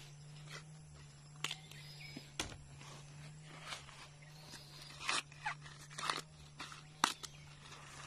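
Dry corn husks being torn and stripped from ears of corn by hand, an irregular rustling and crackling with a few sharper snaps.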